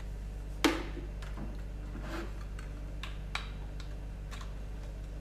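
A plastic water bottle being handled and opened: one sharp click less than a second in, then a few lighter clicks and crinkles, over a steady low hum.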